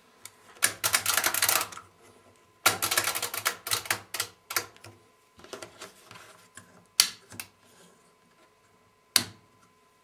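Program selector and temperature dials of a 1987 Siemens Siwamat 285 washing machine being turned by hand, clicking through the mechanical program timer's steps. There are two runs of rapid clicking, then a few single sharp clicks as the dials are set, the last about a second before the end.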